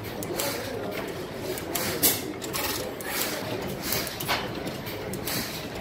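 C. P. & J. Lauson 'Badger' 12 hp single-cylinder hit-and-miss gas engine running, with sharp clicks and knocks from its valve gear and make-and-break igniter at irregular intervals, the loudest about two seconds in.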